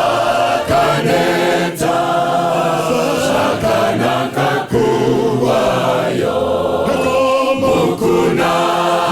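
A choir singing a slow hymn in Shona, many voices holding long notes together, with a word about every two seconds.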